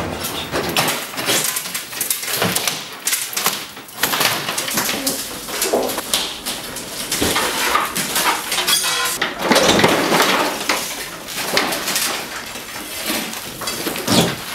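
Demolition clatter: plaster, boards and sheets being pried off walls and thrown down, with irregular knocks, scrapes and crashes.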